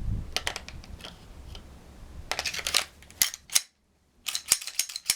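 Glock 17 pistol being reassembled: a run of sharp clicks and short sliding scrapes as the slide, barrel and recoil spring guide rod go back onto the polymer frame's rails and lock into place, in clusters partway through and near the end.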